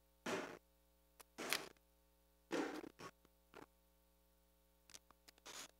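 Quiet pause over a faint steady hum, broken by a few short soft rustles in the first three seconds and several small clicks near the end, from handling at a pulpit microphone.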